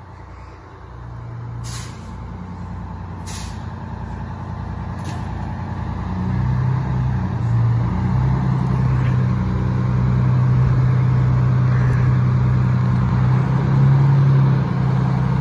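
Vintage fire engine's engine running in the station bay, growing louder about six seconds in. Three short hisses of air sound from its air brakes in the first five seconds.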